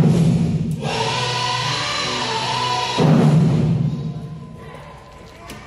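Children's drum ensemble playing: a loud unison drum stroke rings and fades, a short melodic passage follows, and about three seconds in another big unison stroke rings out and dies away.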